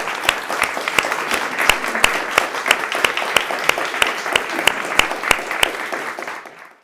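Audience applauding, with one set of close-by hand claps standing out at a steady beat of about three a second. The applause fades out near the end.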